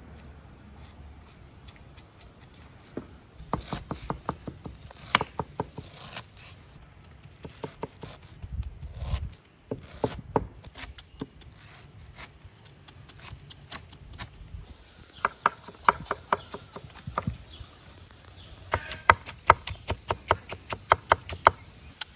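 Knife blades chopping onion and tomato on a wooden cutting board over a layer of minced meat: quick runs of sharp strikes, several a second, with pauses between.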